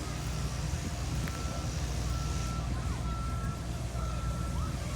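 A vehicle's reversing alarm beeping: a steady high beep, about half a second long, repeating roughly once a second over a low rumble.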